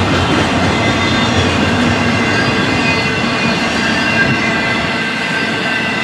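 Double-stack intermodal freight cars rolling past with a steady rumble of wheels on rail. A thin, high wheel squeal grows stronger from about two seconds in.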